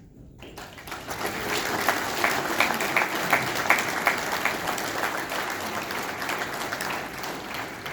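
Audience applauding, with many individual claps audible; it builds up quickly about half a second in and fades toward the end.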